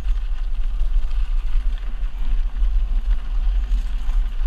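Wind buffeting a camera microphone on a mountain bike riding down rocky singletrack: a heavy, steady low rumble over the faint crunch and rattle of the tyres and bike on the dirt trail.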